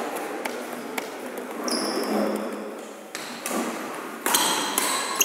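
Badminton shoes squeaking on a wooden court floor, with a few sharp racquet hits on the shuttlecock, the hits closer together near the end.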